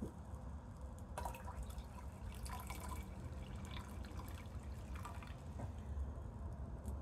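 Liquid trickling and splashing into a glass beaker of gold-bearing solution in uneven spurts as precipitant is poured in, turning the solution dark brown.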